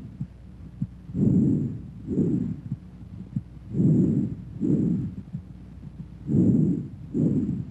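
Bronchovesicular breath sounds as heard on auscultation of the chest: three breaths, each a low, muffled inspiratory rush and an expiratory rush of about equal length, separated by a brief gap.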